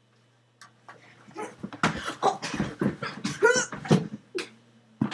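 Off-screen commotion: a quick run of knocks and thuds mixed with shouts and yelps, starting about half a second in, with a rising cry near the middle.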